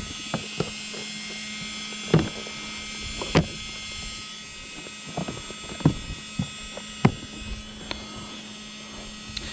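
Handling of a hard plastic equipment case: scattered sharp clicks and knocks as its latches are undone and the lid is opened, over a steady low hum.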